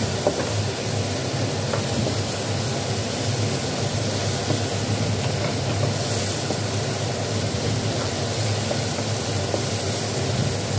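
Cabbage, carrots and ground meat sizzling steadily in hot oil in a nonstick wok while a wooden spatula stirs and tosses them, with faint scrapes of the spatula on the pan. A low steady hum runs underneath.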